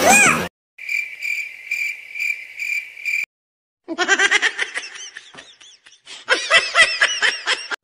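Comedy sound effects: a cricket chirping in a steady pulse, about two or three chirps a second, for a couple of seconds. After a brief silence comes a high, squeaky voice effect in quick repeated rising-and-falling syllables, like sped-up laughter.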